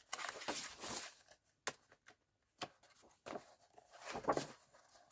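Paper pages of a large book being turned and handled: a rustle in the first second or so, two light taps, then another rustle toward the end.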